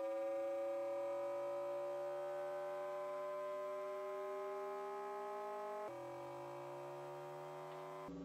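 Steady electronic oscillator tone with a buzzy stack of overtones, gliding slowly upward in pitch. About six seconds in it switches abruptly to a lower, slightly quieter tone.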